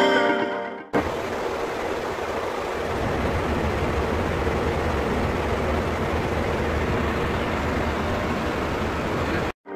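Steady rush of airflow and engine noise inside a Boeing 737's flight deck in flight, with a low hum underneath.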